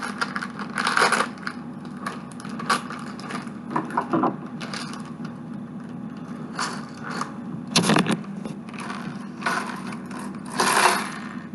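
Plastic LEGO pieces being handled and sorted: irregular clicks, scrapes and rattles, with louder clatters about a second in, about eight seconds in and near the end.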